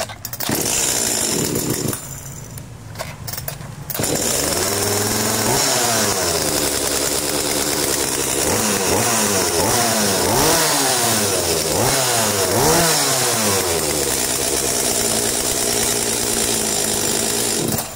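Kioritz (Echo) 5001 49.3 cc two-stroke chainsaw running, its throttle blipped up and down again and again, then falling quiet near the end. Its idle is set a little high.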